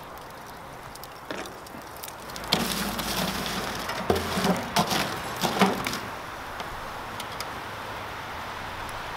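Hot lump charcoal in a grill being stirred with a metal tool: a run of clinks, knocks and crackles from about two and a half seconds in until about six seconds, over a quieter steady background.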